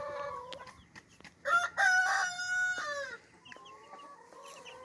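A rooster crows once, loudly, starting about a second and a half in and lasting about a second and a half, with soft clucking from chickens before and after.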